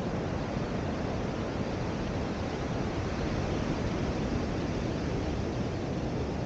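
Steady rush of ocean surf along the beach, mixed with wind.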